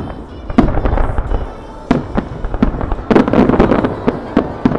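Aerial firework shells bursting in quick succession: repeated sharp bangs at uneven intervals, with a dense run of bangs about three seconds in.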